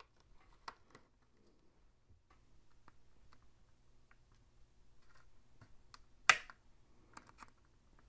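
Faint scattered plastic clicks as the snap-fit shell of a Logitech Harmony One remote is pried apart, with one sharp snap about six seconds in and a few smaller ticks just after: the case clips letting go.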